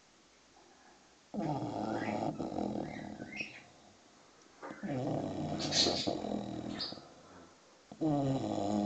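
Six-month-old English bulldog snoring in its sleep: three long snores about three seconds apart, each lasting about two seconds. This is the heavy snoring typical of the breed's short, flat-faced airway.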